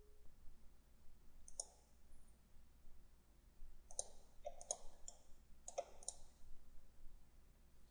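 Computer mouse buttons clicking: a handful of short, faint clicks, one about a second and a half in and the rest bunched between about four and six seconds in.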